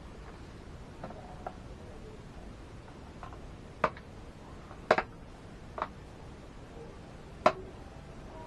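Scattered sharp clicks and taps, about eight at uneven intervals, the loudest a close pair near the middle and one near the end, from hands handling computer parts during a RAM upgrade.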